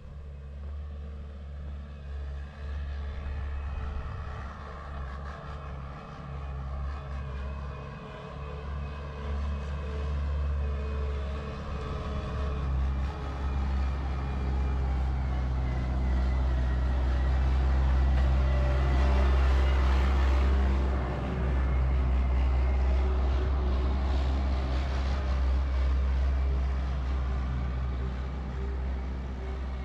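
A steady low engine drone with a few held tones. It grows louder to a peak about two-thirds of the way through, then eases a little.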